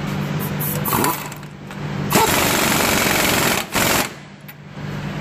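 Impact wrench hammering a castellated nut down onto a steering-linkage ball stud. It runs in one long burst about two seconds in, then a short second burst.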